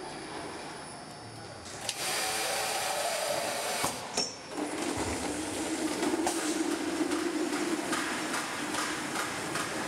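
Automatic drum filler: a sharp click and a loud air-like rush about two seconds in as the fill lance lowers into the plastic drum's bung hole, another click about four seconds in, then a steady rushing noise with a low hum underneath as filling runs.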